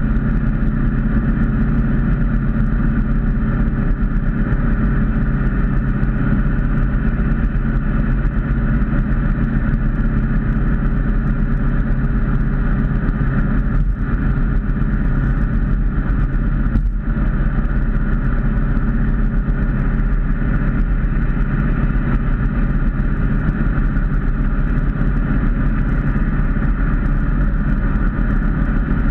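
Ford Mustang cruising at steady highway speed, heard from inside the cabin: a steady engine drone mixed with road noise.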